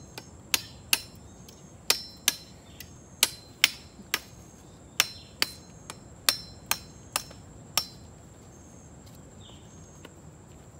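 Machete chopping into a coconut: about fifteen sharp strikes with a brief metallic ring, roughly two a second, stopping about eight seconds in.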